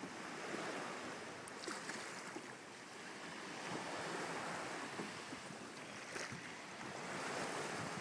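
Small waves washing in shallow water at the shore, with wind buffeting the microphone.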